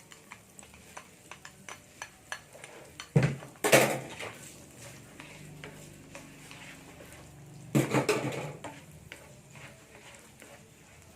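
A utensil stirring and tapping in a pan of melted butter and garlic, with a run of light clicks, and two louder clatters of metal cookware about three and eight seconds in.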